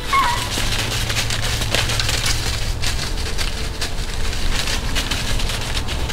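Irregular crackling and rustling, many small clicks over a low steady rumble.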